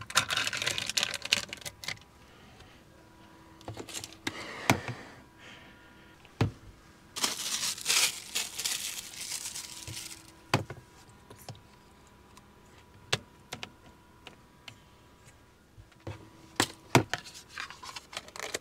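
Kitchen handling sounds: crinkling and rustling of packaging in two stretches, near the start and again from about 7 to 10 seconds, with scattered sharp clicks and knocks of utensils, dishes and containers being set down.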